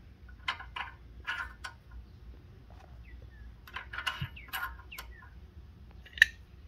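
Small metal spacers and washers clinking on a steel shaft as they are slid on and tried for fit, in a few light taps with the sharpest near the end. A bird chirps in the background in short downward-sliding calls.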